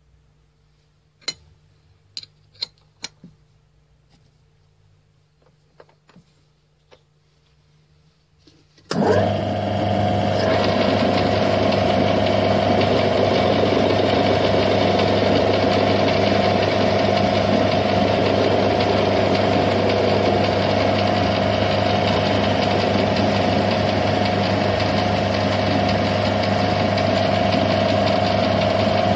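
A few sharp clicks in the first three seconds. Then, about nine seconds in, a metal lathe is switched on and runs steadily, its motor and spinning chuck giving a loud, even hum.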